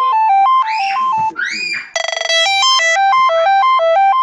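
Android 8.1 stock ringtone playing: a fast synthesized tune of quick stepped notes, broken about a second in by two rising swooping chirps and a short buzzy burst, after which the stepped tune resumes.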